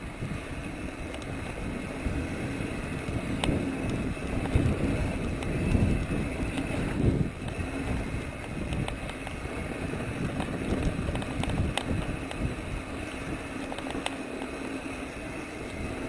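Mountain bike rolling down a dirt singletrack: tyres rumbling over the trail, with wind buffeting the microphone and a few sharp clicks and rattles from the bike. It grows louder for a few seconds in the middle.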